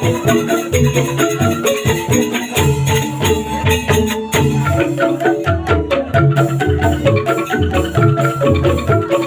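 Instrumental music led by bright, xylophone-like tuned percussion over a repeating bass figure, with a shaker or rattle keeping a steady rhythm.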